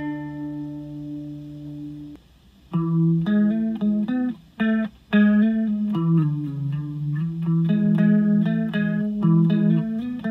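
Electric guitar played through a Deadbeat Sound Wet Dreams chorus pedal set to a subtle chorus. A chord rings and fades for about two seconds. After a short pause comes a riff of picked chords and single notes, broken by a couple of brief stops.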